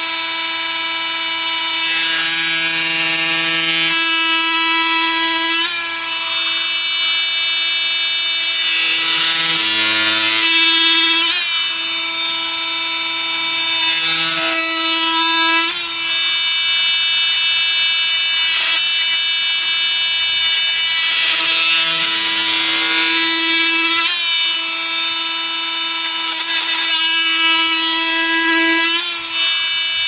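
Flex cordless oscillating multi-tool running at speed with its blade cutting into a wooden log: a loud, steady high buzz with many overtones, faltering briefly a few times before picking up again.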